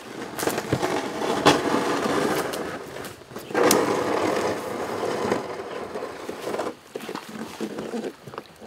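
Someone climbs into the bow of a jon boat from a gravel bank: feet crunch and shuffle, and the hull knocks and scrapes under hands and feet, in two busy spells with scattered knocks after.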